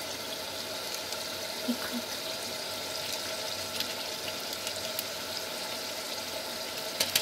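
A pan of chicken masala sizzling steadily on the stove, with a few faint crackles.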